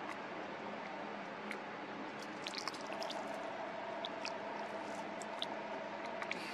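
Small scattered clicks and ticks of a camera being handled while its zoomed lens is focused, over a steady faint background hum.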